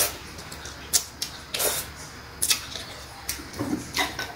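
Close-miked eating sounds of instant cup noodles: short slurps of noodles and wet chewing clicks, as a string of brief separate sounds with a few quick hissy slurps.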